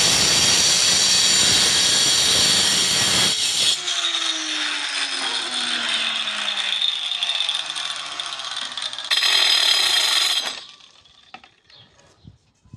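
Handheld angle grinder with a cutting disc cutting a strip off a floor tile, a loud dense grinding noise. A little under four seconds in the cut ends and the motor's whine falls in pitch for a few seconds. It runs up loud again about nine seconds in and cuts off about a second and a half later.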